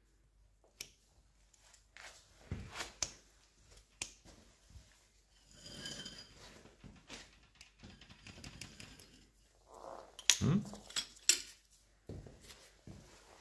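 Small metal tool clicking and scraping against the steel knurled collar and shaft of a SAJO milling machine's handwheel, in scattered light clinks. There is a brief metallic ring about six seconds in, and the loudest clatter of metal on metal comes around ten to eleven seconds in.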